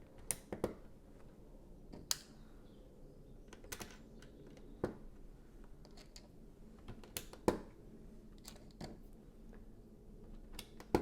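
LEGO pieces clicking as they are handled and pressed together: sharp plastic clicks at irregular intervals, a second or two apart.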